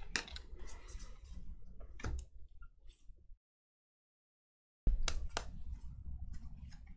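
Scattered light clicks and rustles of trading cards and pack wrappers being handled on a table. The sound cuts out completely for about a second and a half in the middle.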